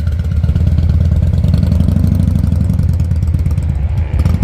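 Cruiser motorcycle engine running at low revs, a steady low rumble, as the bike pulls away across the lot.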